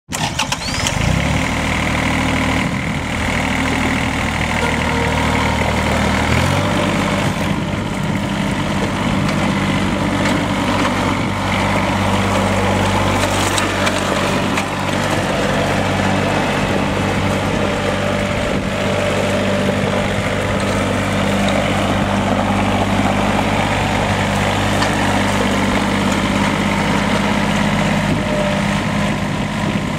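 Massey Ferguson 1205 compact tractor's diesel engine running steadily. About six seconds in, the engine note changes to a higher, steadier pitch, then holds there.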